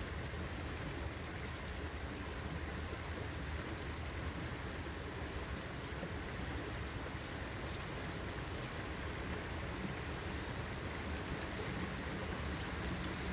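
Steady rushing noise of a high, fast-flowing river.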